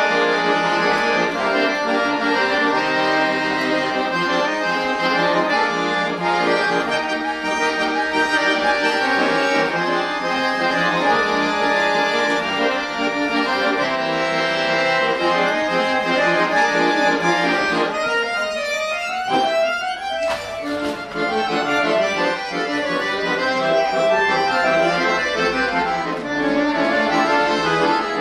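Accordion playing a continuous tune of melody over held chords, with a brief break and a click about two-thirds of the way through.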